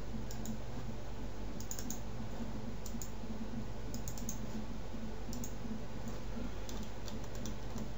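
Scattered clicks of a computer mouse, several in quick pairs or small clusters, over a steady low hum.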